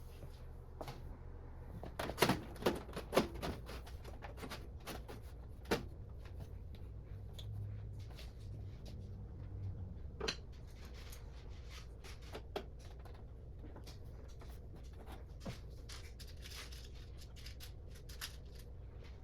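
Clicks, taps and light knocks of computer hardware being handled and fitted by hand, with a cluster of sharper knocks a couple of seconds in and single clicks spread through the rest, over a steady low hum.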